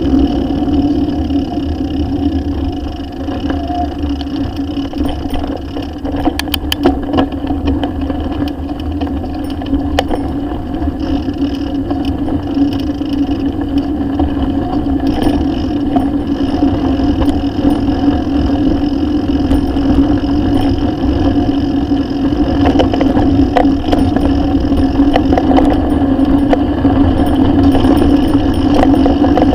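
Riding noise from a bicycle on a gravel and dirt road, picked up by a camera mounted on the handlebars: a steady hum and low wind rumble on the microphone, with scattered rattles and ticks.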